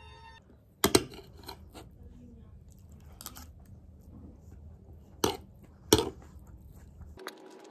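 Kitchenware clattering: a handful of sharp knocks and clinks of dishes or utensils, the loudest about a second in and two more near the end.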